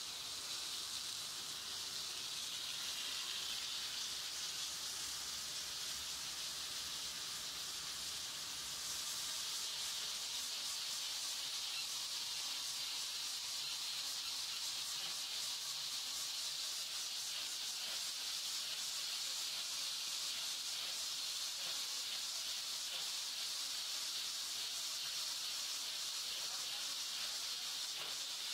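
Mini BOPP tape slitting-rewinding machine starting up and running: a steady high hiss that comes in suddenly and grows a little louder about eight seconds in.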